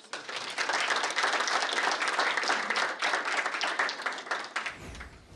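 Audience applauding: dense clapping of many hands that thins and fades out near the end.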